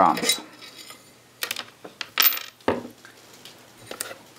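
Small metal parts, a brushless motor and its prop adapter pieces, clinking as they are picked up off a glass-topped kitchen scale and set down: four short, sharp clinks spread over a few seconds.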